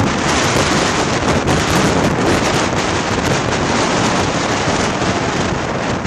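Wind gusting at over 50 mph, buffeting the microphone: a loud, unbroken rushing noise.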